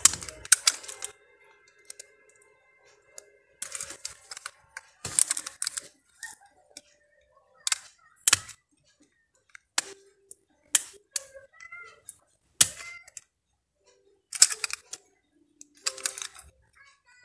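Irregular sharp clicks and taps of small plastic and metal mobile-phone parts being handled and pressed into place, about a dozen in short clusters with pauses between.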